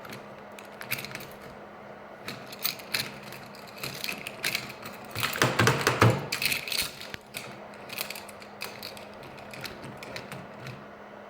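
Irregular mechanical clicks and rattles, densest and loudest about five to six and a half seconds in, over a faint steady hum.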